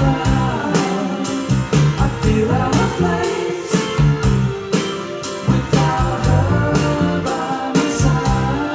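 A song with singing, a steady drum beat and bass, played back through Paradigm Studio 100 v1 floor-standing loudspeakers.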